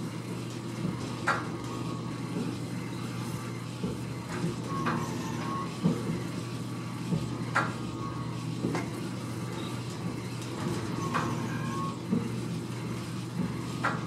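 Oil well pumpjack running: a steady low hum from its drive, with a metallic knock and short squeak every few seconds as the beam rocks through its stroke.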